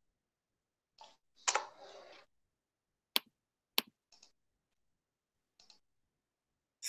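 Sparse clicking at a computer while a link is shared online, with two sharp clicks about half a second apart midway and a few softer brief rustles before and after.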